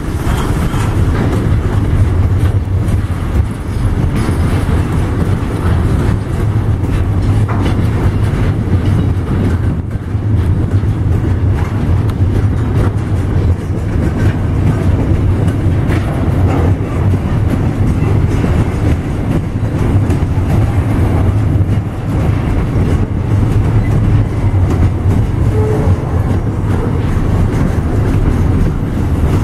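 Loaded container freight train rolling past, its flat wagons' wheels running on the rails with a steady low rumble.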